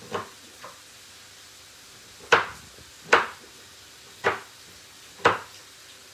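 Chef's knife chopping a block of dark chocolate on a wooden cutting board. Two light knocks come first, then four sharp knocks of the blade on the board about a second apart.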